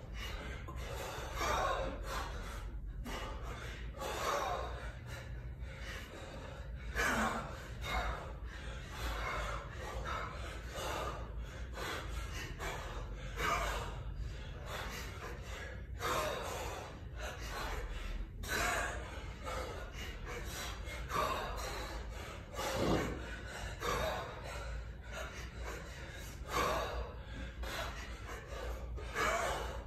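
Hard, rhythmic breathing from a lifter under effort, with a loud gasp or exhale about every couple of seconds, keeping time with repeated one-arm kettlebell lifts, over a steady low hum.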